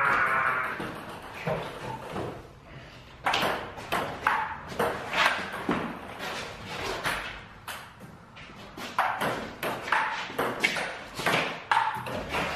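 Table tennis rally: the plastic ball clicks off bats and table in quick back-and-forth runs, with a lull in the middle. The clicks echo in a bare concrete garage.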